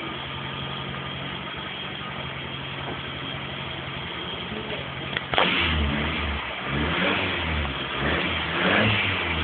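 Car engine heard at its tailpipe, idling steadily; a sharp knock about five seconds in, then the engine is revved up and down several times, louder.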